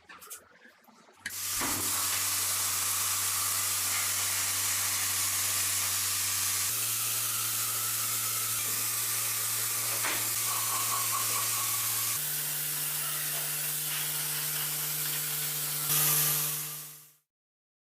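Steady loud hiss of a high-pressure spray or air jet over the even hum of the machine driving it, the hum stepping up in pitch twice, then fading away shortly before the end.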